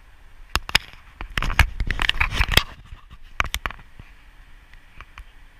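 Lightsaber blades striking each other in a duel: a quick run of sharp clacks for a couple of seconds, then a few more strikes about three and a half seconds in.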